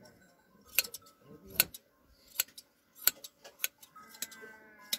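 Hand shears snipping through a sheep's fleece: sharp metallic clicks of the blades closing, roughly one a second, with a quick pair near the middle.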